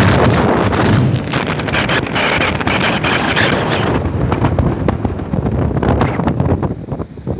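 Strong wind blowing across the microphone: loud, rough noise full of crackles, easing a little near the end.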